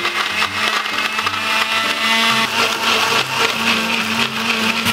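Countertop electric blender running steadily, grinding chopped kimchi-paste ingredients with water into a smooth, juice-like purée.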